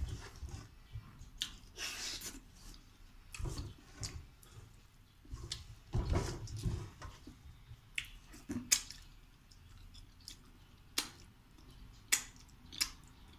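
Close-up wet mouth sounds of a person eating with his hands: chewing, lip smacks and sharp sucking clicks as he licks his fingers, coming irregularly, with a few sharper smacks in the second half.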